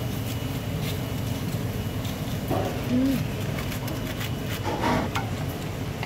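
Steady low background hum of a working kitchen, with a few brief murmured voices and some faint clicks.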